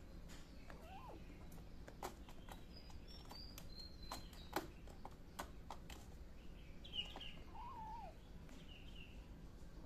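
A tiny kitten mewing faintly, two short high cries that slide up and down, about a second in and near the end, with scattered light clicks and faint bird chirps behind.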